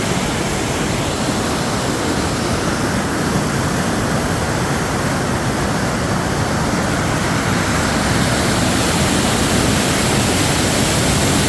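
Water rushing through a river lock's freshly opened gates, a loud steady roar of water falling from the higher level to the lower one like a waterfall, growing a little louder near the end.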